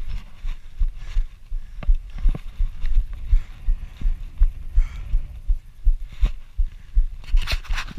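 Fat bike riding over rippled dune sand, heard through a bike-mounted GoPro: a dense run of muffled low thumps and knocks as the bike jolts over the sand, with a short burst of hiss near the end.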